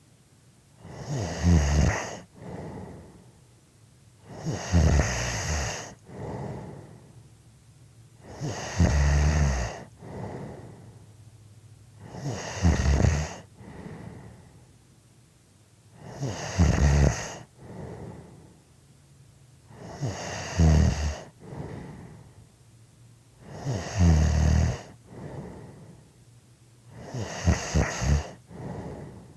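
A person snoring in a slow, regular rhythm: eight loud, low snores about every four seconds, each followed by a quieter breath.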